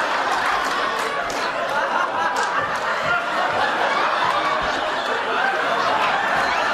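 Studio audience laughing, many voices overlapping in a steady, continuous wash of laughter.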